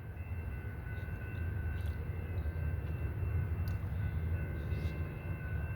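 Amtrak Wolverine passenger train running by with a low, steady rumble that swells a little in the middle and then eases.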